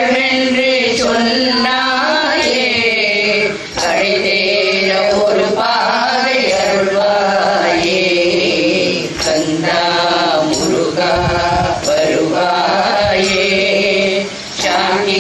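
A group of women singing a Hindu devotional bhajan together in chant-like lines, with brief pauses between lines about four seconds in and near the end.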